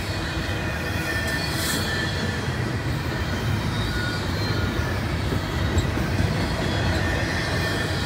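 Double-stack intermodal freight cars rolling past: a steady rumble of steel wheels on rail, with a faint high wheel squeal running through it.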